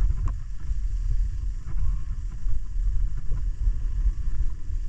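Wind buffeting the microphone of a camera riding down the slope with a snowboard, over a steady low rumble of the board sliding and scraping on packed, groomed snow.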